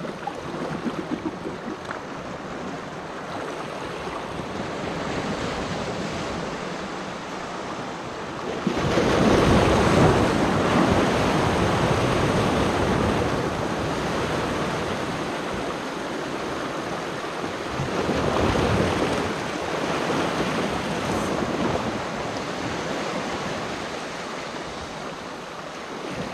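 Sea waves washing and foaming over shoreline rocks, a steady rush that swells into a louder surge about a third of the way in and again a little past the middle.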